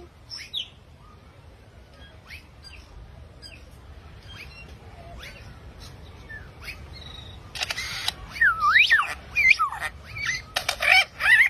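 A bird calling: scattered faint chirps at first, then about two-thirds of the way in a harsh call followed by loud whistles that sweep up and down in pitch.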